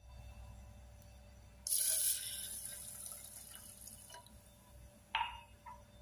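Water poured from a glass onto washed rice in a rice cooker's inner pot. It starts suddenly about two seconds in with a splash and fades away. A short click follows near the end.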